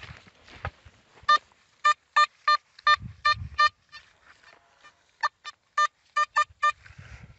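Metal detector beeping as its coil sweeps back and forth over a dug hole, signalling a metal target in the ground. Short sharp beeps of one steady pitch come in two runs: seven, then a pause of about a second and a half, then six more.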